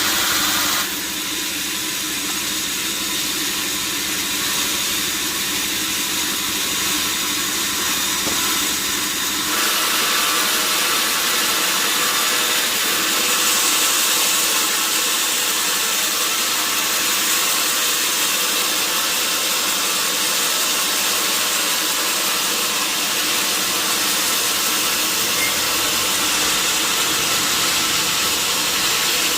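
Sawmill sawing machine running steadily, a loud mechanical drone with several held tones. The sound changes about a second in and again about ten seconds in.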